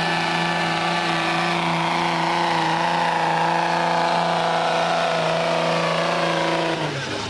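Dodge Ram pickup engine running hard at high, steady revs while pulling a sled down the truck-pull track, its pitch holding level. About seven seconds in the revs fall away as the pull ends.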